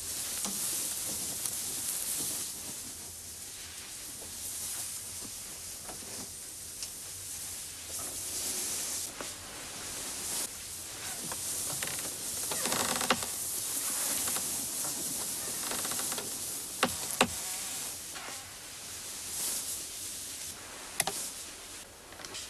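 Fabric and bedclothes rustling as a person in a satin nightgown moves about and gets into bed, over a steady hiss, with a few sharp clicks or knocks in the second half.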